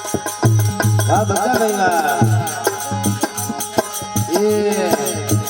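Instrumental interlude of a desi bhajan. A hand drum keeps a fast beat with deep low strokes under steady held tones, while a melody slides up and down in pitch twice, about a second in and again near the end.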